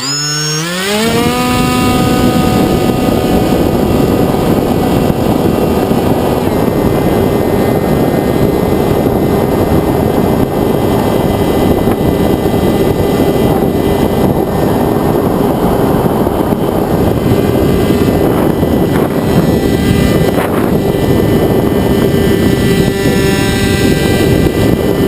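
Electric motor and propeller of a Sky Surfer RC plane, heard from a camera on board: it spools up within the first second, then holds a steady whine at full throttle under heavy wind rush.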